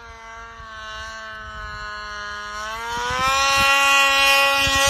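Snowmobile engine running at high revs as the sled approaches, a steady whine that grows louder and rises slightly in pitch in the second half.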